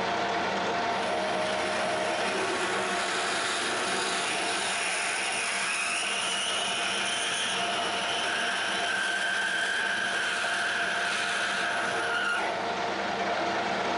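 Harrison M300 metal lathe running with a steady hum while a large twist drill cuts into a spinning brass workpiece. A high-pitched cutting squeal from the drill comes in about a third of the way in and stops abruptly near the end.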